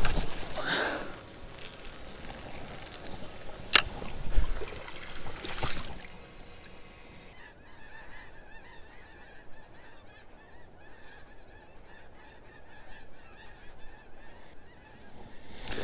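Water splashing against shoreline rocks, with a sharp click about four seconds in. From about halfway, geese honking in a quieter run of wavering calls.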